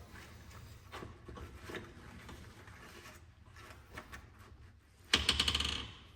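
Hand ratchet wrench working on engine fasteners: scattered light metal clicks and knocks, then a fast run of ratchet clicks about five seconds in as the handle is swung back.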